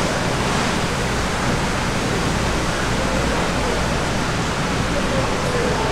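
Steady, even rushing background noise of a busy market, with faint distant voices.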